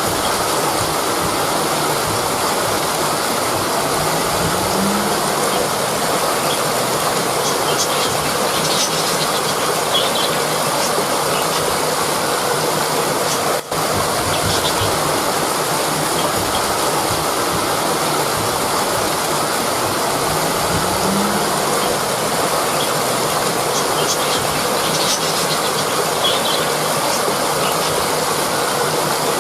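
Rushing river water, a steady loud flow, with a momentary dip about halfway through.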